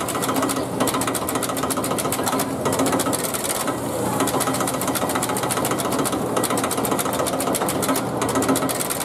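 Main controller of a Tokyu 8000 series train working, its cam-operated contactors clicking rapidly in runs broken by brief pauses, over a low steady hum.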